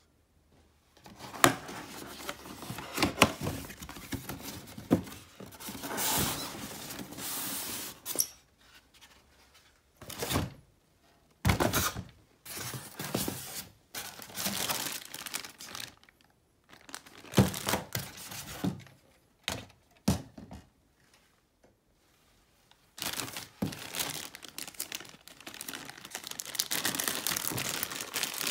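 Unpacking by hand: cardboard and styrofoam packing scraping and rubbing, with sharp knocks as pieces are handled, in irregular bursts with short pauses; plastic bags crinkle near the end.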